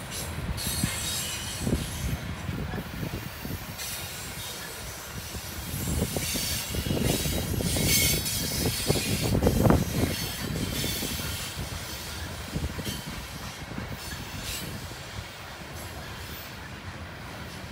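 Coal train's freight cars rolling past on steel wheels: a steady rumble with clatter from the rails. It swells about six seconds in, is loudest near ten seconds, then eases off.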